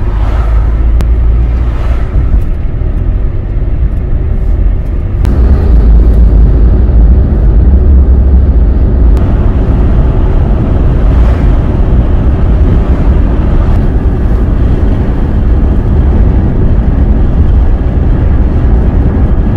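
A car driving at road speed, heard from inside the cabin: a steady low rumble of engine and tyre noise that gets a little louder about five seconds in.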